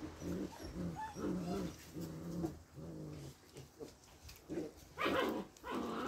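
Puppies making a string of short whining, moaning calls, then two louder yelps about five seconds in.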